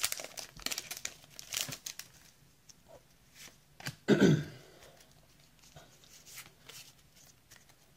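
Foil booster-pack wrapper crinkling and tearing as the pack is pulled open and the cards are slid out. About four seconds in comes a short, loud vocal sound falling in pitch, like a cough or throat-clear. After it there are only faint soft ticks of cards being handled.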